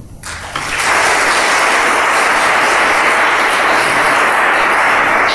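A large audience applauding: the clapping starts about half a second in, builds within a second and then holds steady.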